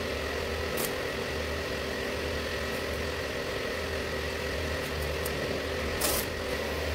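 Steady machine hum with a faint thin whistle over it. Masking tape is pulled off its roll in two short rips, about a second in and again near the end.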